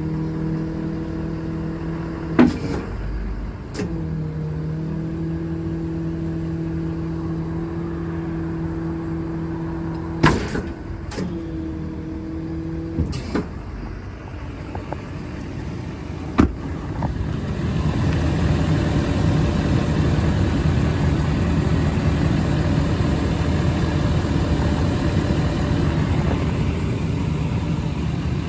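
Tow truck's self-loader hydraulics running with a steady hum, stopping and restarting with sharp clicks and clunks as the controls are worked. After this comes a louder, even rumbling noise.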